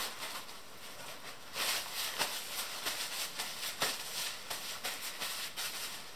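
Paper towel rustling and crinkling as it is handled and crumpled, with a few light taps.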